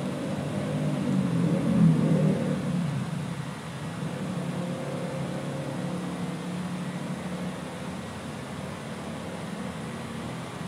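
Steady low hum of an outdoor air-conditioning condenser unit running, a little louder for the first three seconds or so.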